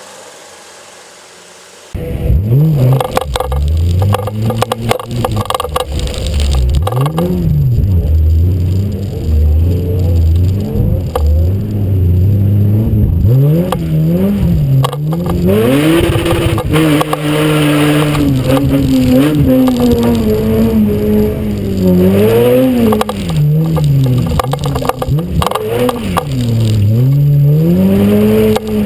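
Mitsubishi TJ Magna rally car engine revving hard and falling back again and again as it is driven through a dirt gymkhana course, with tyre and dirt noise and a burst of spray noise in the middle. The engine starts about two seconds in, after a short quieter stretch.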